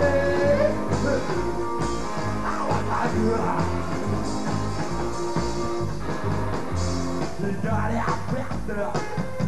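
Live psychobilly garage-rock band playing: a driving, repeating bass line under drums and electric guitar.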